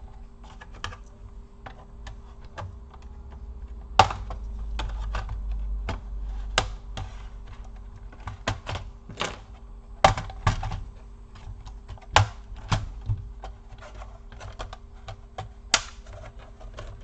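Plastic snap-in clips of an Acer laptop's top case clicking and popping loose as the case is pried apart from the bottom case, in irregular clicks, the loudest about 4, 10, 12 and 16 seconds in.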